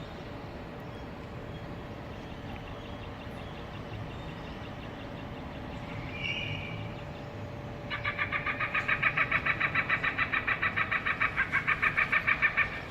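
Bird Gard Super Pro PA4 acoustic bird deterrent broadcasting recorded bird distress calls through its horn speakers: a faint short call about six seconds in, then from about eight seconds a loud, rapid stuttering call of about eight pulses a second, over a steady low rumble.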